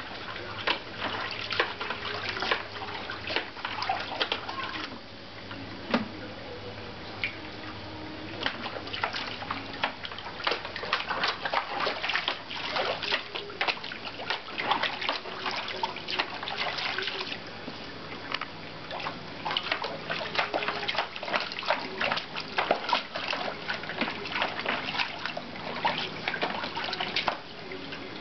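An Old English Sheepdog pawing and stomping in the shallow water of a plastic paddling pool: a continuous run of irregular splashes and sloshing.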